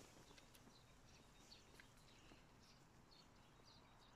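Near silence, with a few faint, short high chirps about a second apart.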